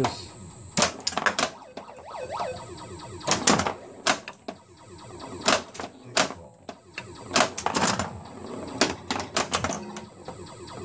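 Bally Eight Ball Deluxe pinball machine giving off about a dozen sharp mechanical clacks and knocks at irregular intervals, as its switches and mechanisms are tested.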